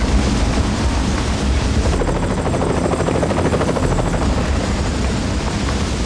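Large waterfall rushing loudly and steadily, with a rapid fluttering chop a couple of seconds in.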